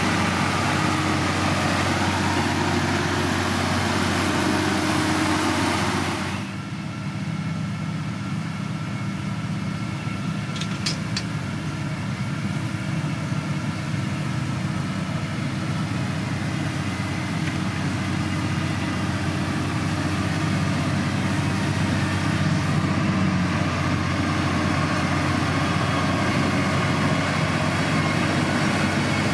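Heavy diesel construction machinery running steadily with a low engine drone. About six seconds in, the higher hiss drops away suddenly and the low drone carries on. Two short high clicks come around eleven seconds in.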